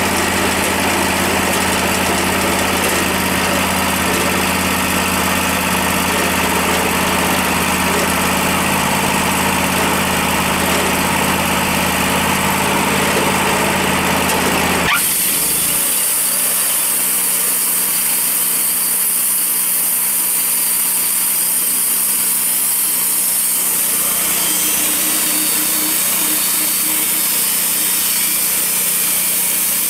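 Wood-Mizer LT40 portable bandsaw mill running, its engine steady as the band blade cuts through a maple log. About halfway through, the sound changes abruptly: the low engine hum drops away and a hissing sawing sound takes over.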